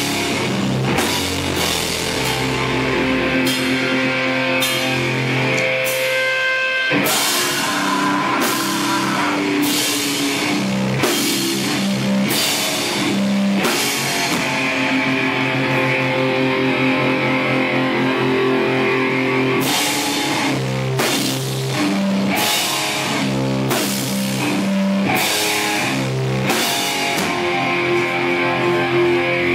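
A heavy rock band playing live and loud: electric guitars, bass and a drum kit with frequent cymbal crashes. About six seconds in the low end briefly drops away, then the full band comes back in.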